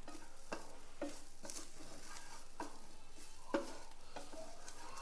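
A spatula stirring and scraping a dry, crumbly mixture in a hot pan with a light sizzle, in irregular strokes, the loudest about three and a half seconds in. The mixture is being roasted until its raw smell is gone and it turns dry, the last stage before the stove is switched off.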